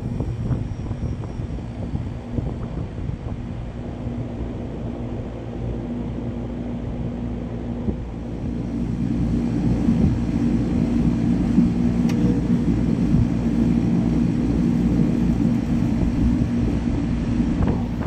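2004 Goodman CPLT 3-ton heat pump outdoor unit starting up in heat mode: a steady compressor hum with fan rumble, getting louder about halfway through.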